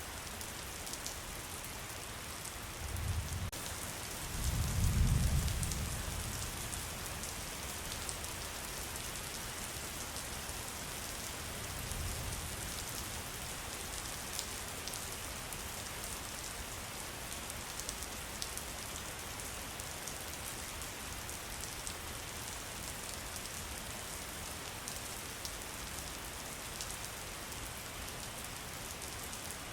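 Steady rain falling on a surface, a dense even hiss with scattered drop ticks. Low rumbles of distant thunder swell about 3 and 5 seconds in, the second the loudest, with a fainter one near 12 seconds.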